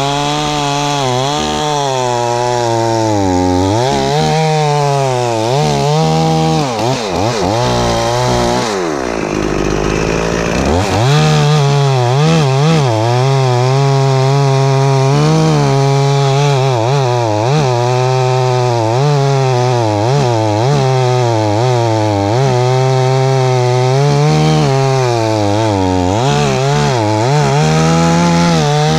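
Stihl 044 two-stroke chainsaw running near full throttle while cutting through a fallen tree trunk, its engine pitch wavering as the chain bites and loads in the wood. About nine seconds in the pitch sags sharply for a couple of seconds, then climbs back up to full speed.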